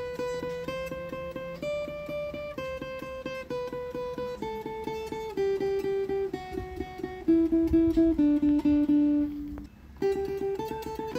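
Guitar playing a single-note melody, each note picked rapidly and repeatedly. The line climbs a little, then steps down lower, breaks off briefly a little before the end, and starts again.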